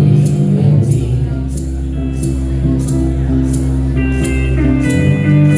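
Live band playing an instrumental passage of a slow country-rock song: guitars and bass held over a steady beat, with a high percussion hit roughly every two-thirds of a second. A higher sustained melody line comes in about four seconds in.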